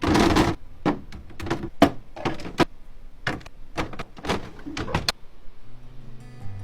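Groceries and plastic containers being handled and set into a refrigerator: a sliding scrape at the start, then a string of sharp clacks and knocks. Soft music comes in near the end.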